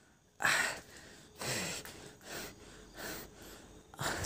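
A man breathing hard and unevenly close to the microphone: a sharp gasp about half a second in, then about four softer breaths roughly a second apart. It is the shaky breathing of someone who says he is trembling with fear.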